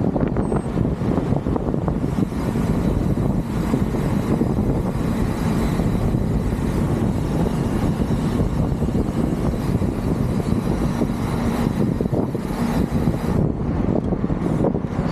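Steady low rumble of wind and road noise from riding along, dense and constant, with the upper hiss thinning out near the end.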